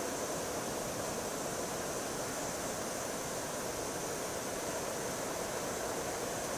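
Steady, even rushing noise of an outdoor wooded place, with no distinct events.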